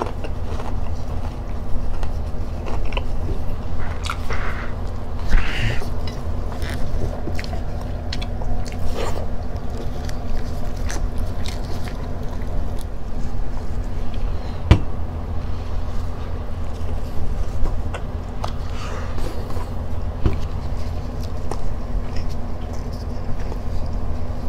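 Close-miked chewing and biting: a person eating grilled catfish and raw onion by hand, with wet mouth clicks and smacks, over a steady low hum.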